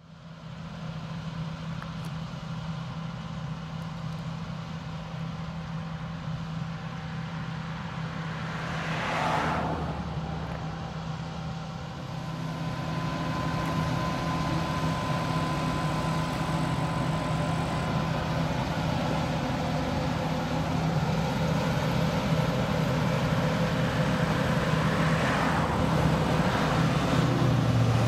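John Deere combine harvester running steadily as it harvests grain, its engine hum fading in at the start and growing louder as the machine comes nearer. There is a brief swell of noise about nine seconds in and another near the end.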